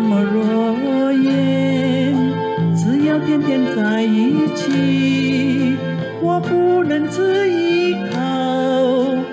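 Background music: a song with a sung melody over instrumental backing.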